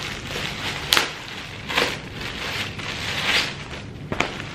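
Packaging and fabric crackling and rustling as a laptop bag is unwrapped and handled, with two sharp clicks, one about a second in and one near the end.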